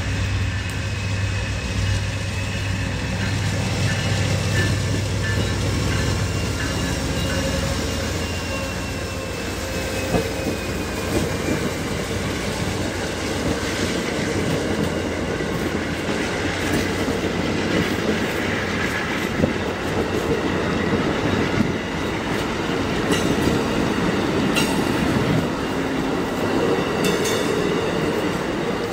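Amtrak passenger train passing close by. The diesel locomotive's low engine drone comes first and fades after about eight seconds. Then comes the steady rumble of the passing passenger cars, with their wheels clicking over the rail joints.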